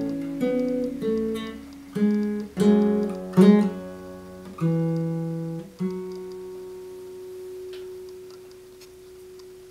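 Kremona Fandango nylon-string classical guitar played fingerstyle: the closing phrase of a piece, a run of plucked notes and chords, with the last one, about six seconds in, left to ring and slowly fade away.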